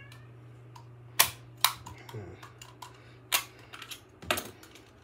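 Sharp plastic clicks and snaps from a small wireless mouse being handled: about four louder clicks, spread irregularly, with softer ticks between.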